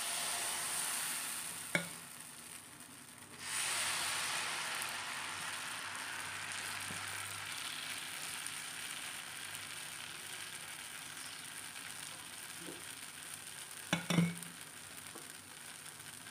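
Millet dosa batter sizzling on a well-heated dosa griddle as it is ladled on and spread outward in circles; the sizzle dips briefly, comes back strongest a few seconds in, then slowly fades. A small knock early on and a louder knock near the end.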